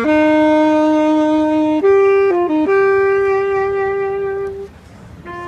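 Solo saxophone playing a slow melody of long held notes, with a quick run of short notes about two seconds in and a brief pause near the end before the next note.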